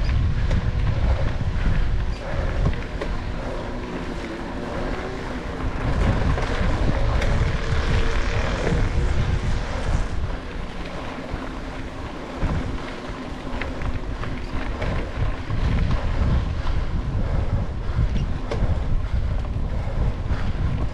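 Wind buffeting the microphone of a handlebar-mounted action camera while a mountain bike rolls over a gravel track, with tyre crunch and small rattles of the bike throughout.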